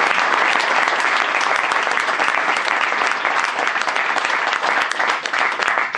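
Audience applauding: a dense patter of many hands clapping that tails off a little near the end.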